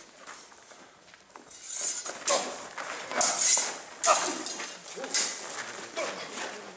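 Steel stage swords clashing in a staged fencing duel: a run of sharp metallic clinks of blade on blade, starting about two seconds in and coming every second or so.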